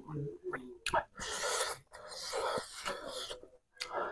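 Close-miked mouth and breath sounds of a man eating with his fingers: a few short clicks, then two long breathy hisses, the first about a second in and the second lasting over a second.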